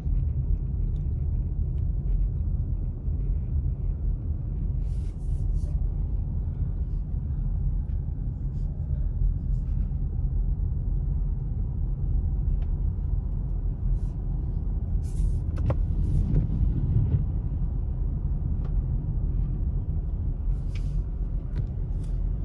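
Car driving slowly on wet pavement, heard from inside the cabin: a steady low rumble of engine and tyres, with a few faint clicks.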